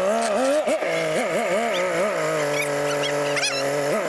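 Off-road vehicle engine running steadily while crawling, its pitch rising and falling briefly again and again as the throttle is eased on and off.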